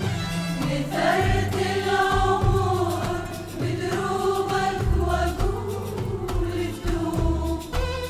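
Women's choir singing an Arabic song together, backed by a traditional Arabic orchestra of oud, qanun, strings and frame drums that keeps a steady beat underneath.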